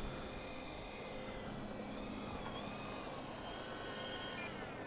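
Twin electric motors and propellers of an E-flite Twin Timber RC plane whining faintly on low approach, the pitch drifting up and down as the throttle changes.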